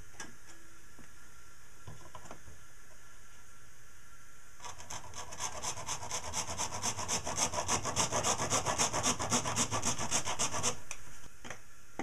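Hand saw cutting through the spout of a plastic funnel in quick, even back-and-forth strokes, starting about four and a half seconds in and stopping a little before the end. A few light handling knocks come before and after the sawing.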